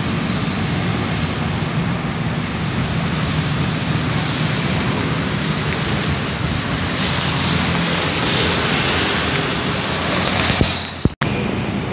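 Steady rumble of road traffic on a bridge deck, mixed with wind buffeting the microphone. The sound cuts out abruptly for an instant about eleven seconds in.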